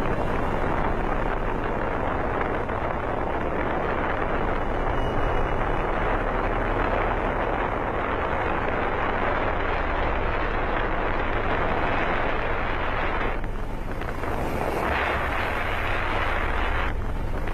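Steady rushing noise of wind and road on the microphone of a moving vehicle, with a low hum underneath; it briefly dips twice near the end.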